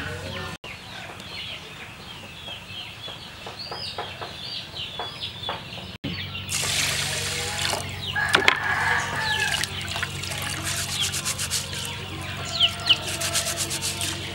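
Chickens clucking in the background, with many short high chirps. From about six seconds in, water sloshing and swishing as rice is rubbed and swirled by hand in a metal pot of water, in quick repeated strokes.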